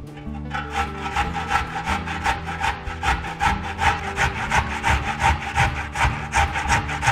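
A carrot grated on the fine side of a stainless-steel box grater that stands on a wooden cutting board: rhythmic rasping strokes, about three a second, starting about half a second in.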